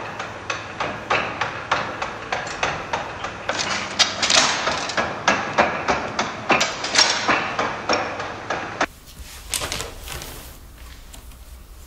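Jacquard card-punching machine punching holes in loom cards: a sharp mechanical clack about three times a second. About nine seconds in the clacking stops and a much quieter background follows.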